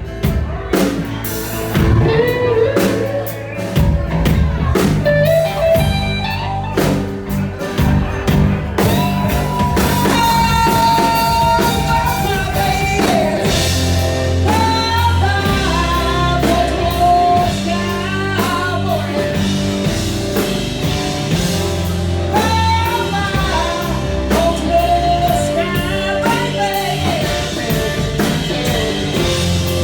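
Blues-rock band playing, with guitar and drum kit under a bending lead melody line.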